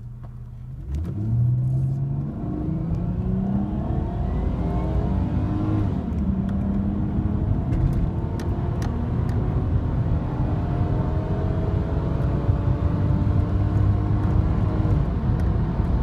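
Lexus IS200's 1G-FE inline-six revving hard under full-throttle acceleration, heard from inside the cabin. The revs climb from about a second in, drop around six seconds as the automatic shifts up, then climb again. Its ACIS intake control valve is disabled, so the loud induction note builds smoothly, without the usual step around 4,500 rpm.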